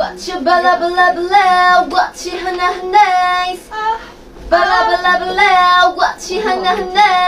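Young women singing vocal practice phrases in clear, high voices. Short held and bending notes come in a few bursts with brief breaks between them.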